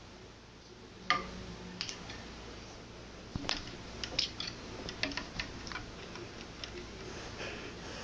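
Phone charger clicking and tapping as a cat bats and plays with it: irregular light clicks, the sharpest about a second in and at three and a half seconds, then a scatter of quicker ones.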